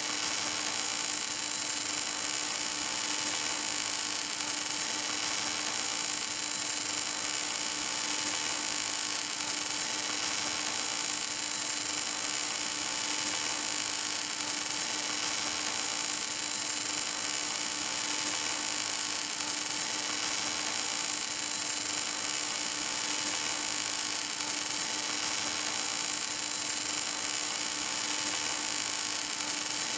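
Welding arc of an automatic pipe-welding tractor's wire-fed torch, burning steadily with an even hiss and a steady low hum underneath.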